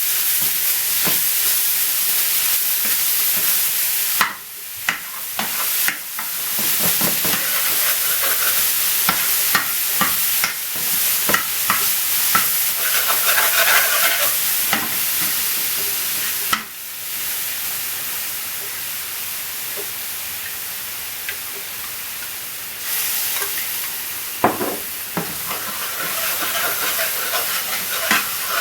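Garlic and ginger paste frying in hot oil in a pan, sizzling steadily, with short clicks and scrapes of it being stirred against the pan. The sizzle drops away briefly a few times.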